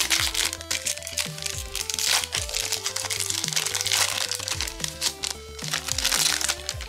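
Plastic packaging crinkling and crackling as a card pack is unwrapped, over background music with a repeating bass figure.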